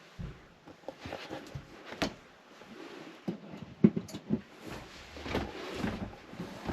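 Scattered knocks and clunks inside a Class A motorhome's cabin, with a low steady hum setting in about halfway through.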